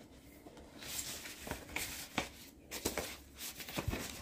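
Vinyl LP jackets being handled and shuffled by hand: a soft rustle about a second in, then several light taps and scuffs of cardboard.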